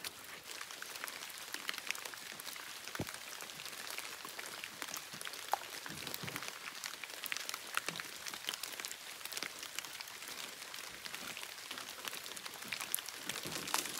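Steady rain falling on the forest and lakeshore, an even hiss dotted with many small ticks of drops striking close by.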